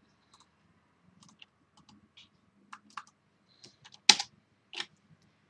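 Light, irregular computer keystrokes and clicks, about a dozen, with one sharper, louder click about four seconds in.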